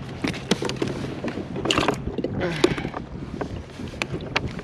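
Scattered clicks, knocks and rustling from hands handling a small black sea bass and tackle on the plastic deck of a fishing kayak.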